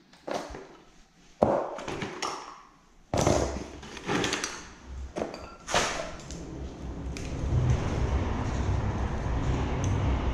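Knocks and clatter as chainsaw parts, tools and cans are picked up and set down, four sharp ones in the first six seconds. A steady rushing noise takes over in the second half.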